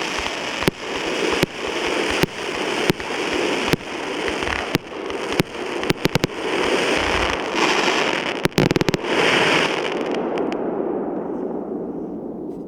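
A 216-shot multi-calibre firework cake firing: sharp reports about every three-quarters of a second over continuous crackling, with quick volleys of shots about six seconds in and again at about eight and a half seconds. The crackling dies away toward the end.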